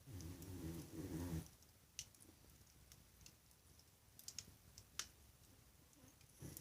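Quiet wood fire crackling, with single sharp pops about two seconds in and again around four and five seconds in. For the first second and a half a louder low, pulsing hum sounds over it.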